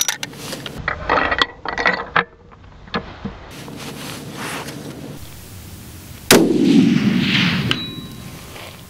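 Savage Model 16 bolt-action rifle in .270 WSM being loaded, with metallic clicks and clacks as a cartridge is fed and the bolt is worked over the first few seconds. About six seconds in comes a single loud rifle shot, whose report echoes for about a second.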